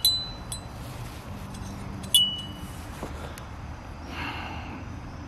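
Hanging metal-tube wind chime swaying, its tubes tangled together: a few scattered clinks with short ringing tones, the clearest right at the start and about two seconds in.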